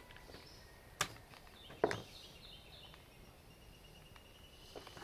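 Two sharp clicks of hand tools and wire being handled, about a second in and a louder one just under two seconds in, with faint bird chirping.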